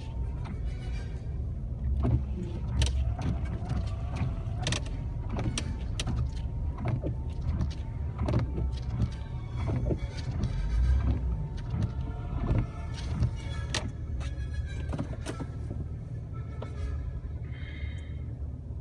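Jeep Wrangler cabin noise while driving in snow: a steady low engine and road rumble with irregular sharp clicks and knocks, and a thin wavering tone through most of the middle.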